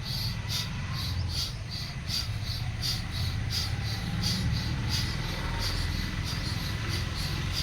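Bhastrika bellows breathing: rapid, forceful breaths through the nose, an even hiss pulsing about three times a second, over a steady low rumble.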